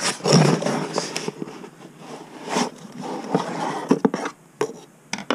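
Boxes and packaged parts being handled and moved: irregular rustling and scraping with several sharp knocks.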